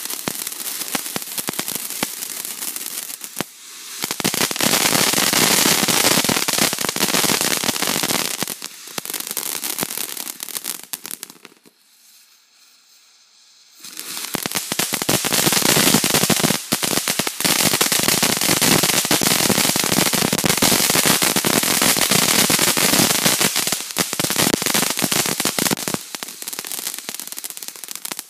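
Ground fountain fireworks spraying sparks with a dense, loud crackling hiss. The first fountain dies away about eleven seconds in, there are two quiet seconds, then another fountain ignites and crackles on to the end.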